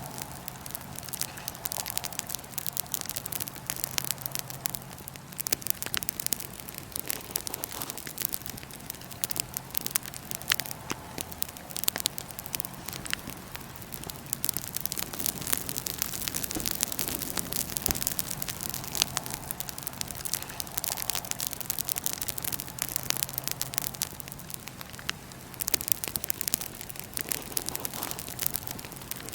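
Wood fire burning in a fire pit, crackling and popping irregularly and often over a steady hiss, with a faint steady low hum underneath.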